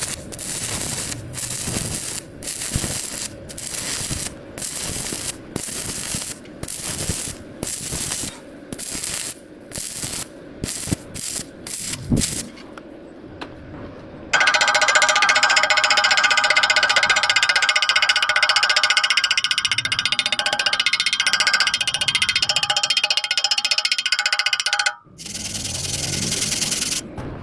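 Stick-welding arc crackling in short regular pulses with brief breaks, coming faster after about ten seconds, as the electrode is worked in a weave. Past the halfway point, about ten seconds of music with steady sustained tones cover it. A steady arc crackle returns near the end.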